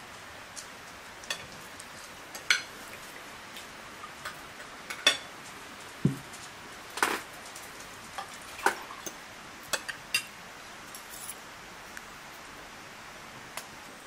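Cutlery clinking against dishes in scattered, irregular clicks over a steady hiss, with one duller knock about six seconds in.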